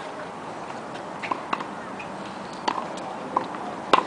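Tennis ball strikes on a hard court: sharp, separate knocks of ball on racket strings and court, the loudest near the end.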